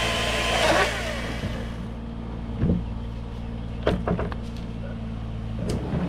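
An engine runs steadily. A loud rush of leaves and branches fades away over the first two seconds as the lowered maple limb brushes through the other fork, followed by a few short knocks and cracks of wood.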